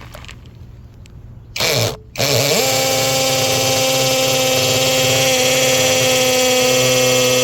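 Kamolee cordless hammer drill triggered briefly about a second and a half in, then started again and run steadily at constant speed, a motor whine over a loud hissing rattle of the hammer action.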